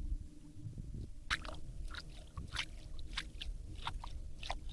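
Heavy jigging reel cranked against a hooked fish: a run of sharp crackling clicks, two or three a second, starting about a second in, over a low steady rumble.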